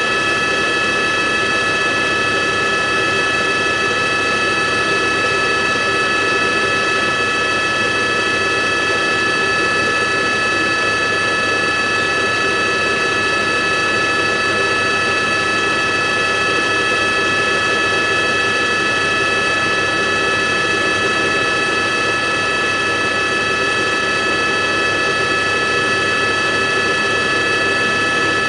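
Helicopter engine and rotor noise heard from on board: a steady turbine whine of several high tones over a constant rush, unchanging throughout.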